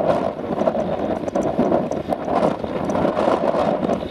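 Claas Jaguar self-propelled forage harvester running steadily under load, picking up and chopping a grass swath and blowing it into a wagon, with a tractor running alongside; the sound is a dense, even mechanical noise.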